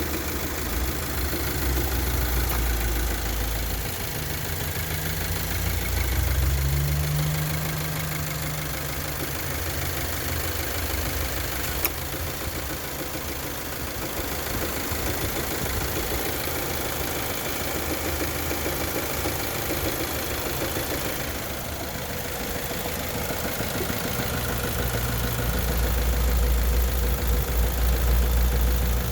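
Engine running, mostly at a steady idle, with the knock the owner calls engine knock. Its pitch rises briefly around seven seconds in, and it grows louder near the end.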